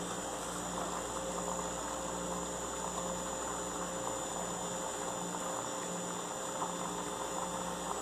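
Steady mechanical background hum with a low tone that pulses on and off at a regular rate of a little under two a second.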